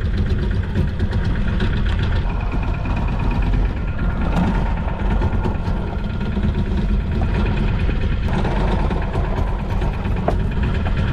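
Fishing boat's engine idling steadily, a continuous low drone.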